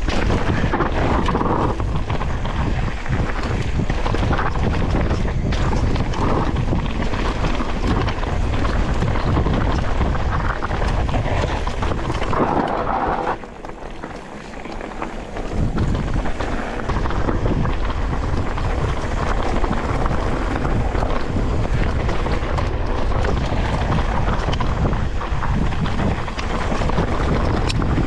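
Wind buffeting an action camera's microphone over the rattle and rolling noise of a mountain bike riding down a trail. About halfway through the noise drops for a couple of seconds, then returns.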